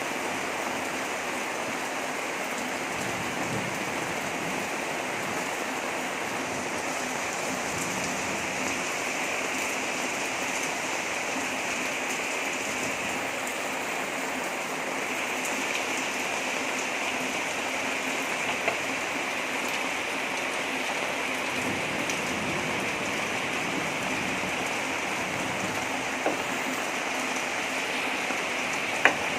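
Heavy rain falling steadily, with a few sharp clicks, the loudest near the end.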